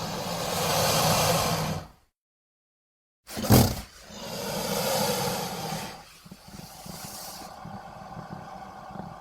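Alligator or crocodile hissing with a low growl underneath, in two separate clips. The first fades out about two seconds in. After a second of silence the second starts with a sudden loud onset, hisses, and from about six seconds settles into a quieter, lower growl.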